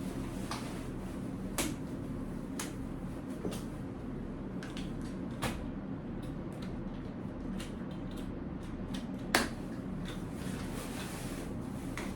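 Scattered sharp clicks and knocks from a kids' stroller's plastic and metal frame parts being handled during folding, the loudest about nine seconds in, over a steady low hum.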